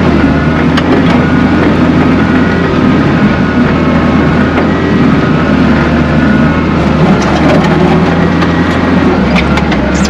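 Skid steer engine running steadily under throttle, heard from inside the cab as the machine drives over dirt. Its low note shifts down about nine seconds in.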